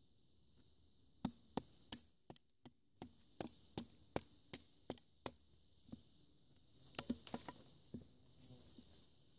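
Gerber Bear Grylls Ultimate Survival Knife chopping into a dry wooden stick: a fast run of sharp wooden knocks, about three a second, starting about a second in and lasting some four seconds, then a few scattered chops and a short quick cluster near the end.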